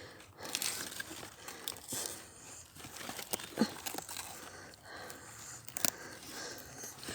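Soft, irregular rustling and crinkling of garden foliage and soil being handled, with a few sharp clicks.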